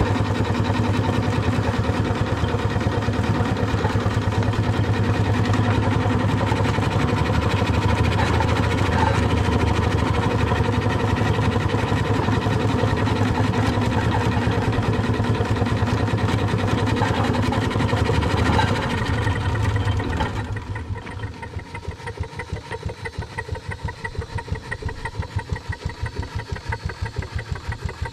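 3-inch scale Fowler R3 showman's steam traction engine running under way with a loud, rapid, steady beat. About twenty seconds in the sound drops to a quieter, slower, even beat.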